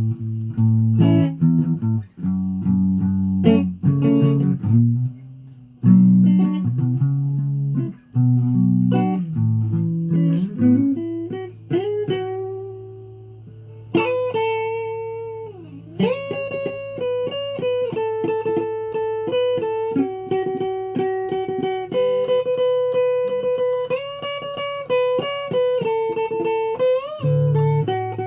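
Instrumental guitar music: a choppy low melody at first, then a long held bass note under a slow melody of sustained notes, with a bent note near the end.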